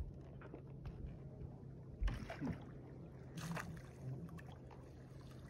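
Hooked trout splashing at the surface beside a boat as it is scooped into a landing net: a burst of splashing about two seconds in and another around three and a half seconds, over a low steady hum.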